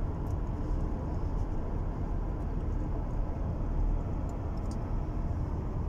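Steady low rumble of tyre and road noise inside the cabin of a 2017 Lexus cruising at highway speed.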